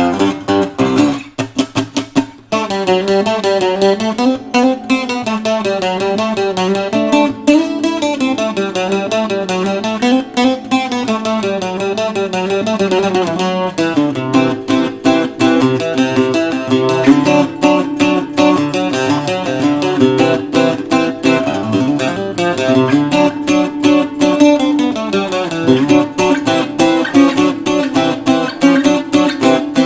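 Bajo quinto fitted with nickel strings being played, with chords and melodic runs and a brief break about two seconds in.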